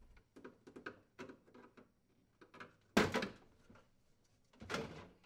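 Refrigerator water reservoir access panel being worked loose from its mounting posts with a flathead screwdriver: light plastic clicks and rustling, with a sharp knock about three seconds in and a smaller one near the end.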